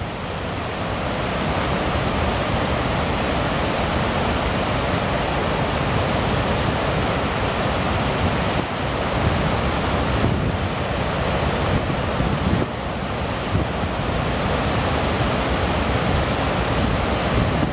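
Creek waterfall running high with spring snowmelt: a steady booming rush of falling water, with wind buffeting the microphone.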